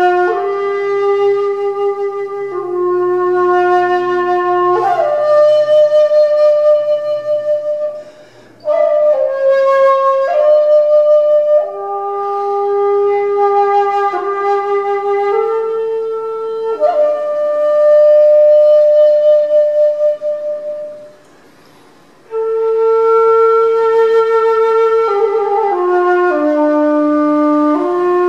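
Solo qinxiao, a slender Chinese end-blown bamboo flute, playing a slow melody of long held notes, some with vibrato, with two short breaks in the playing.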